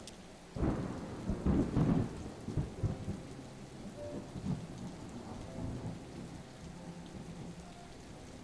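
Thunder over steady rain: a clap breaks about half a second in, rumbles loudest for a second or so, then rolls away while the rain keeps falling.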